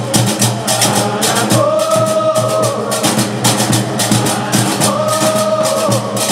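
Live Gnawa music: qraqeb (iron castanets) clattering in a fast, even rhythm, with voices holding a long sung note twice, about a second and a half in and again near the end.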